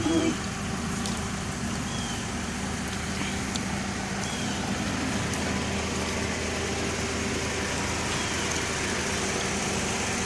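A car engine idling steadily, a low even hum, just after a louder low sound cuts off at the very start.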